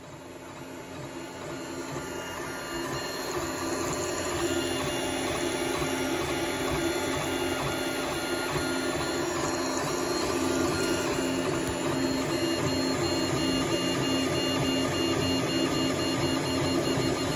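Creality 3D printer running a print: its stepper motors whine in several steady tones that shift as the head moves, over a constant hiss. The sound fades up over the first few seconds.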